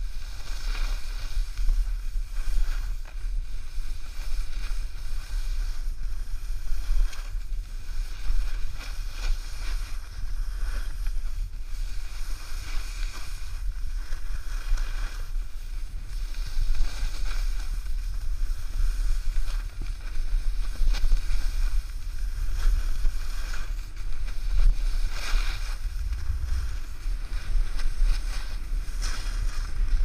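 Wind buffeting the camera's microphone as it rides down a ski slope, a steady low rumble. Over it, the hiss of edges scraping packed snow swells and fades every few seconds with the turns.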